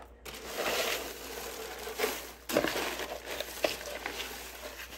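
Crinkle-cut shredded paper filler and tissue paper rustling and crackling as a hand digs through a box, with a sharper crunch about two and a half seconds in.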